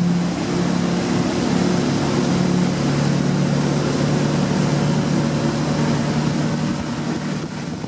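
Motorboat engine running steadily at towing speed, a steady hum over the noise of wind and rushing water from the wake. The engine tone drops away near the end.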